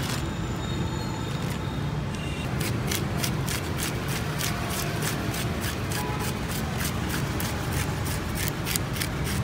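Knife scraping scales off a grouper, quick rasping strokes several a second starting a couple of seconds in, over a steady low background rumble.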